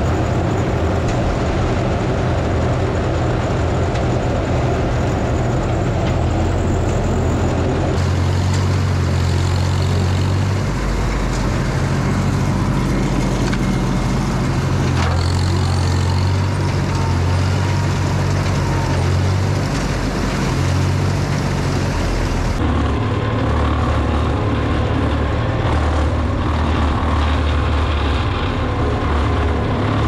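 Farmall M-TA tractor's four-cylinder engine running steadily, turning the PTO shaft of a chopper box as it unloads chopped corn stalks. The sound changes abruptly twice, about 8 and 22 seconds in.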